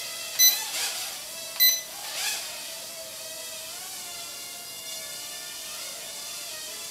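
Bayangtoys X9 micro quadcopter in flight: its motors and propellers make a steady whine whose pitch rises and falls with throttle. Two short, sharp electronic beeps come about half a second and a second and a half in, and two brief bursts of rushing noise come in between and just after.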